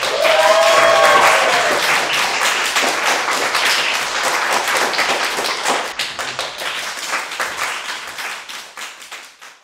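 Audience clapping, with a short whoop from one voice near the start; the clapping thins out and dies away near the end.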